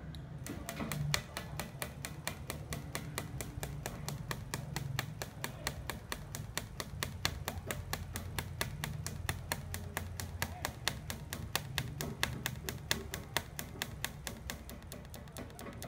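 TIG welding machine running an automatic pulse (weld-ripple) unit, ticking in a fast, even rhythm of about six clicks a second over a steady low machine hum.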